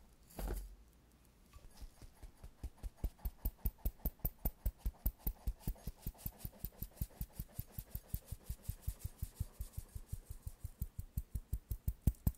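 Stainless steel mesh sieve tapped over and over, about five light taps a second, sifting pancake mix into a glass bowl. One soft thump comes shortly before the tapping starts.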